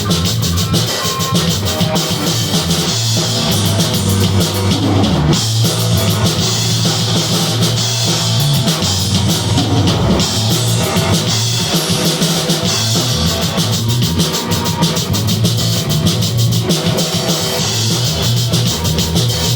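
Rock band playing: guitar, drum kit with steady cymbals, and fretless bass, loud and continuous.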